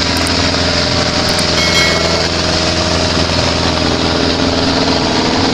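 Farm tractors and a forage harvester running steadily during a maize silage harvest, a continuous diesel engine drone with a dense mechanical rush.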